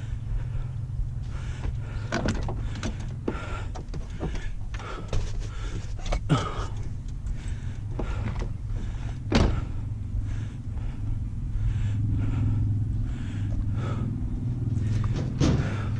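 A steady low engine rumble with scattered sharp knocks and clanks, the loudest about six and nine and a half seconds in.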